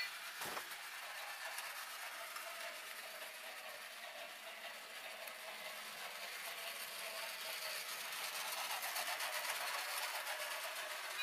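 Battery-powered toy model high-speed train running on plastic track, its small electric motor and wheels making a steady whirring rattle that grows louder as the train comes close. A single click about half a second in.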